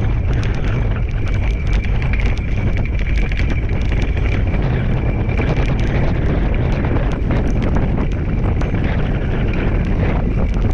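Steady wind rumble on the microphone and the rolling of a dog scooter's wheels over a rough grass and dirt trail while a two-dog team pulls it, with frequent sharp clicks and a faint thin high whine over the first few seconds.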